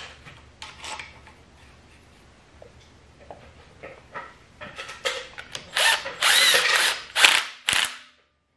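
Cordless power driver spinning down the centre bolt of the exhaust camshaft gear on a VW/Audi 1.8T 20-valve engine, in several short bursts with a rising and falling motor whine, after a few light clicks of the gear being handled. The bolt is only being snugged up lightly, before final torque once the timing belt is on.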